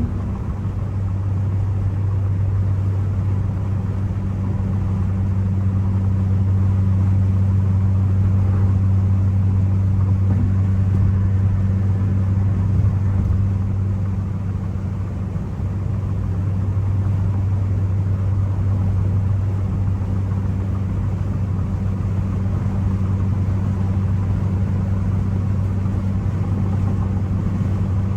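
Ford Focus ST's turbocharged engine droning steadily at cruise, with road noise. The engine pitch holds steady throughout, with no revving.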